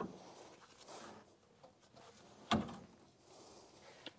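Faint handling noises and one sharp knock about two and a half seconds in, from fitting a replacement ATV shock absorber into its mount.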